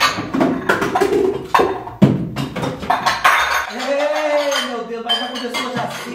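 Pots, pans and dishes clattering and clinking as someone rummages through a kitchen cupboard, with a person's drawn-out vocal call about four seconds in.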